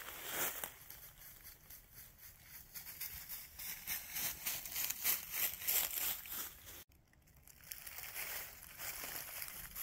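Footsteps crunching through dry fallen leaves, an irregular run of crinkling crunches.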